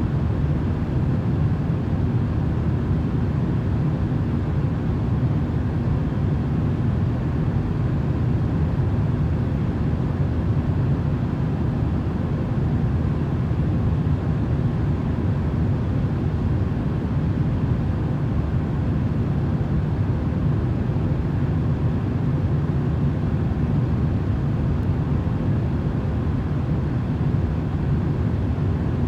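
Steady, unbroken rumbling noise of a white-noise track for sleep, with most of its weight low and little treble, never changing.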